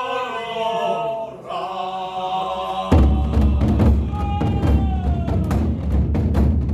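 A long drawn-out chanted call opening a ritual, then about three seconds in a Korean barrel drum (buk) comes in loudly, beaten in many repeated strokes while the chanting voice carries on over it.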